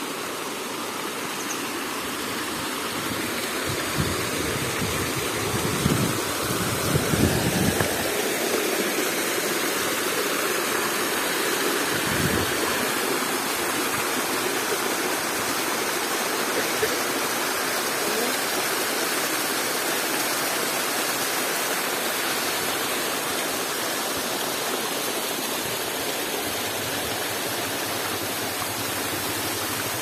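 Waterfall splashing down a rock face and cascading over boulders: a steady rush of water, with a few low thumps between about four and eight seconds in and once more near twelve seconds.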